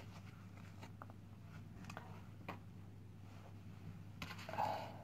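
Quiet room tone with a low steady hum, a few faint clicks, and a brief rustle about four seconds in as a person moves and handles things close to the microphone.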